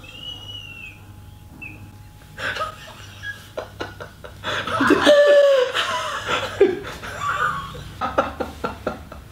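A man and a woman laughing together. It starts quietly, breaks into laughter about two seconds in, and is loudest around the middle.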